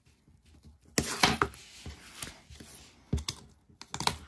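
A paper envelope being cut and pulled open by hand: crisp paper crackles and sharp snips about a second in, then a few more near the end as a cardboard photocard sleeve is slid out onto the desk.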